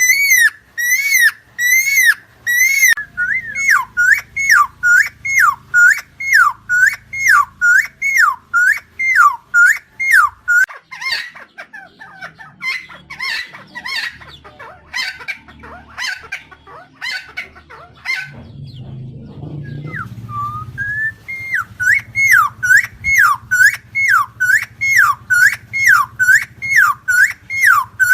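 Helmeted friarbird (Philemon buceroides) calling a long series of loud, repeated notes, about one and a half a second, each dipping down in pitch and back up. About halfway the series breaks into softer scattered notes and a brief low noise for several seconds, then the steady run of calls resumes.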